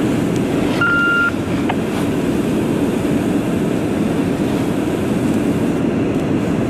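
Steady low rumble of a fire engine running its pump to feed a hose stream onto the burning semi-trailer. One short high beep sounds about a second in.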